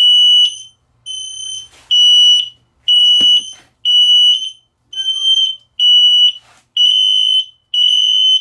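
Several XSENSE wireless interlinked photoelectric smoke alarms in alarm together, set off by smoke: a high-pitched piezo beep repeating about once a second, each beep about half a second long. A single knock about three seconds in.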